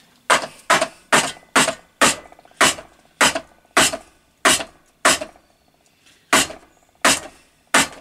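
Plastic bump-feed strimmer head of a Parkside PBK 4 B3 petrol multitool banged down hard on a workbench, about a dozen sharp knocks at roughly two a second. It is a bump test of a head that others report coming apart, and it holds together.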